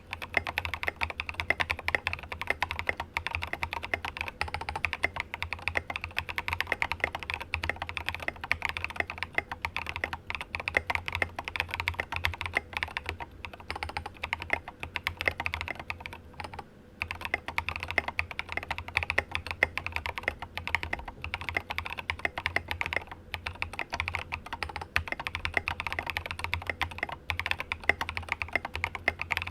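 Fast, continuous typing on a RAMA WORKS KARA mechanical keyboard with lubed, filmed Cobalt POM switches and SA-profile ABS keycaps on a polycarbonate plate with no sound dampening, each keystroke giving a slightly thocky clack. The typing stops for a moment a little over halfway through.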